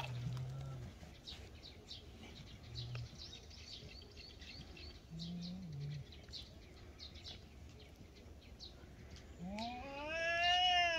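Two feral cats in a standoff: low drawn-out growls now and then, then near the end a loud yowl that rises and falls in pitch. Small birds chirp throughout.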